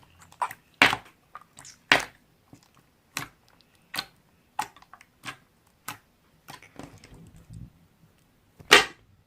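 Slime being pressed and poked, giving short sharp clicks and pops about once a second, the loudest near the end.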